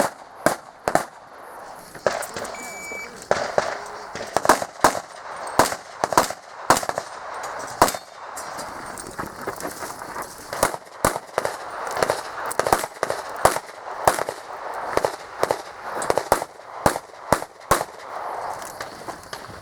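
Handgun shots fired in rapid, irregular strings, often in quick pairs, with short gaps as the shooter moves between targets: a competitor working through a practical-shooting (IPSC) course of fire.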